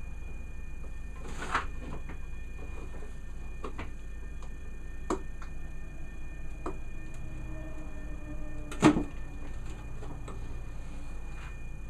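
Scattered plastic clicks and knocks as a car headlight is handled and its lens is pried off the housing, over a steady low hum. The loudest knock comes about nine seconds in.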